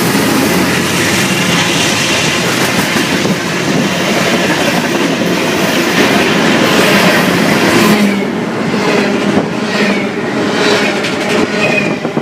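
A long freight train rolls past close by, its steel wheels clattering over the rail joints under a steady loud rumble of passing cars. About eight seconds in, the hiss drops and separate wheel clacks stand out.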